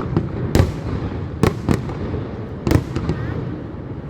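Fireworks going off: about five sharp bangs at irregular intervals, over a continuous low rumble of more bangs.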